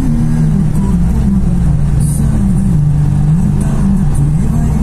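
Motorcycle engine running at road speed, its pitch shifting up and down a few times.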